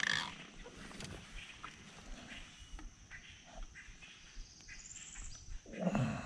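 Quiet swamp-river ambience with faint clicks of handling in the boat; a bird gives a short high trill about five seconds in, and a brief low voice-like sound comes near the end.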